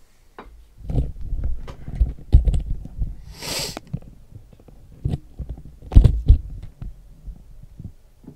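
Irregular thumps and knocks of things being handled and set down on a desk close to the microphone, with a short rustle a little past three seconds in; the heaviest thumps come about six seconds in.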